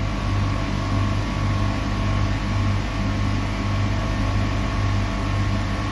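Steady mechanical hum of an Affolter AF90 CNC gear hobbing machine standing running, a low hum that swells and fades in an even rhythm under a faint steady higher tone.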